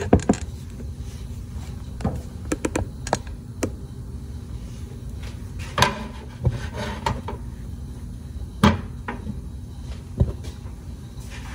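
Intermittent kitchen clatter: scattered knocks and clicks as a frying pan on the stovetop and a spatula are handled, with two louder knocks about six and nine seconds in.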